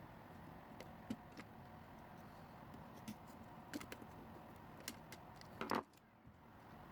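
Scattered small clicks and taps of hands working on a plastic toy, over a faint steady hum, with a brief louder rattle about five and a half seconds in.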